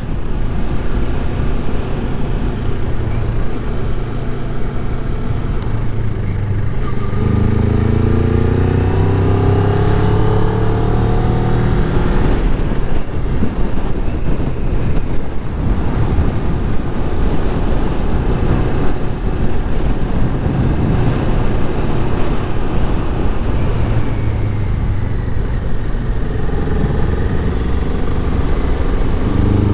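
Kawasaki Ninja 400's 399 cc parallel-twin engine pulling under way, its pitch rising as it accelerates about a quarter of the way in and again near the end. Heavy wind rush over the helmet camera's microphone covers the engine through the middle.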